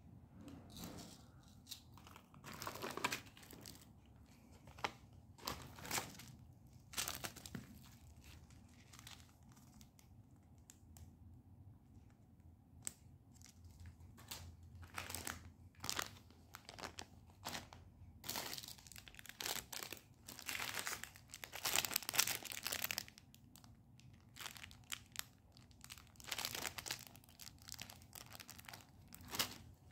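Jewellery packaging being crinkled and torn open by hand, in irregular bursts with short pauses between them.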